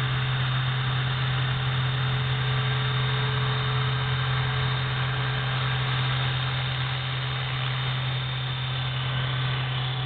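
EXI450 electric RC helicopter hovering, its rotor and motor giving a steady low buzz with a faint high whine over it, holding an even pitch throughout.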